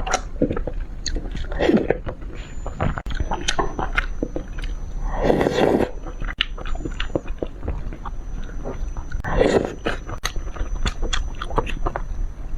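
Close-miked eating of fish: wet chewing and biting with many small smacks and clicks, and louder bursts about two, five and nine and a half seconds in, the middle one the loudest.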